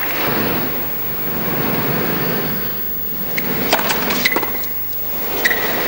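A tennis rally on a hard court: a steady murmur of the stadium crowd, then from about three seconds in a quick run of sharp ball strikes off rackets, mixed with brief high sneaker squeaks on the court surface.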